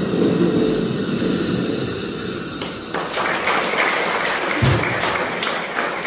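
Audience applauding, the clapping growing denser and louder about three seconds in.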